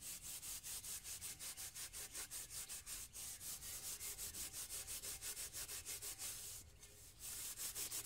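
Fast, even scrubbing strokes, about six a second, of a metal pot being rubbed with wood ash to scour off soot, with a brief pause near the end before the scrubbing starts again.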